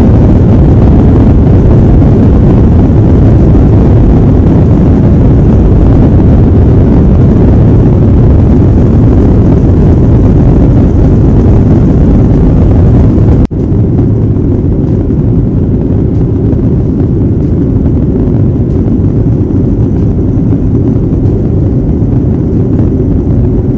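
Jet airliner cabin noise during takeoff: jet engines at takeoff power and runway rumble, a loud, steady, low rumble. About 13 seconds in it cuts suddenly to a slightly quieter, duller steady noise of the aircraft climbing.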